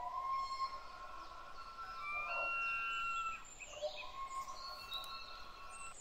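Birds whistling long, steady notes at several pitches, overlapping, over a faint outdoor hiss.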